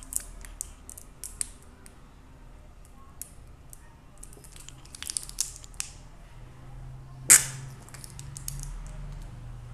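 Small clicks and taps from a steel spoon and a plastic glue bottle against a steel bowl while fabric glue is squeezed out, with one sharper click about seven seconds in.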